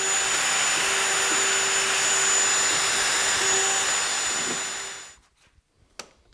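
A hand-held power tool boring shelf-pin holes through a shelf-pin template, with a dust extractor running: a loud, steady whine that cuts off about five seconds in, followed by a few light clicks.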